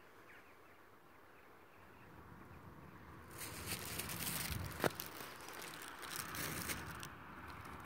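Faint open-air quiet, then from about three seconds in a thin plastic bag crinkling and rustling close to the microphone, with a sharp click near five seconds.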